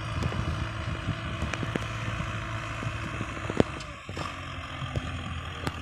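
Tractor engine running steadily as it pulls a tillage implement across a field, with a few sharp clicks, the loudest about three and a half seconds in.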